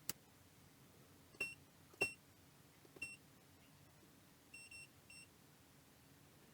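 Faint short electronic beeps from a soldering station's control buttons, each with a small click of the press: single beeps about 1.4, 2 and 3 seconds in, then a quick run of three around 5 seconds in. A sharp click just before the first beep.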